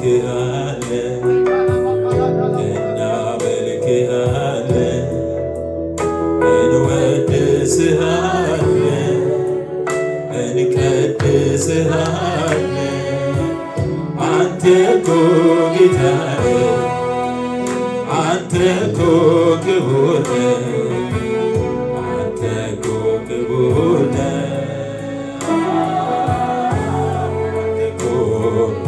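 A man singing an Amharic gospel worship song into a microphone over instrumental accompaniment.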